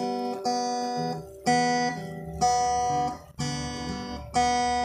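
Acoustic guitar strummed in slow chords, about one strum a second, each chord left to ring before the next.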